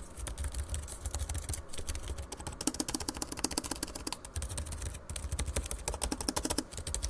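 Keys of an ASUS TUF Gaming F15 laptop keyboard being typed on: a fast, continuous run of key clicks with a few brief pauses.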